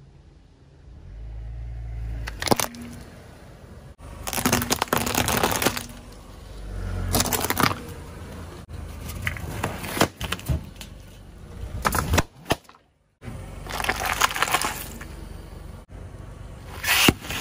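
Car tyre rolling over and crushing brittle plastic objects, toy sand moulds and plastic clothespins, in a series of separate cracking and snapping bursts a second or two long, with low tyre rumble between them.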